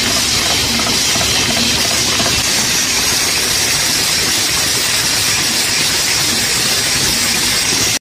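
Aerosol can filling and crimping line running: a steady, loud hiss of compressed air over the machine's running noise.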